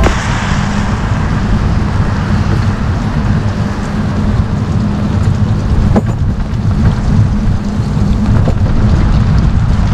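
Storm wind buffeting the microphone as a heavy low rumble, over a steady hiss of rain and cargo-bike tyres on a wet cycle path.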